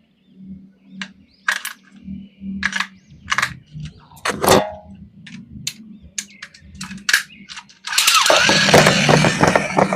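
Hands handling a plastic action figure and its packaging: a scattered string of sharp clicks and taps. Music comes in loudly near the end.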